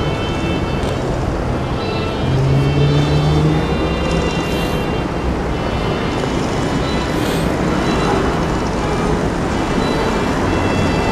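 Steady road traffic noise from vehicles on the street below, with a heavier vehicle's engine swelling louder a little over two seconds in.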